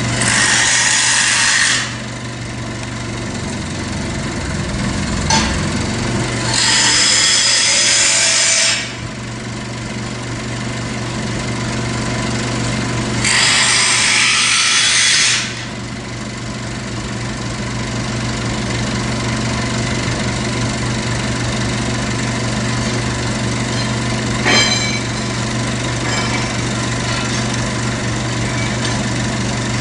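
A power tool run in three bursts of about two seconds each, over the steady hum of an idling engine, with two short knocks.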